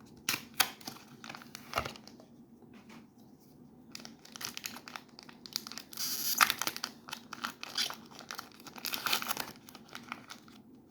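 Foil booster-pack wrapper of Pokémon trading cards crinkling and tearing as it is torn open by hand, in irregular crackles with louder bursts about six and nine seconds in.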